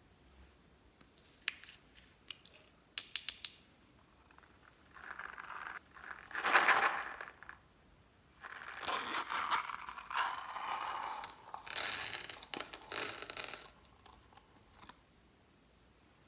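Slime being squished and worked by hand, with crackling, crinkly squelches in long stretches, and a quick run of sharp clicks about three seconds in.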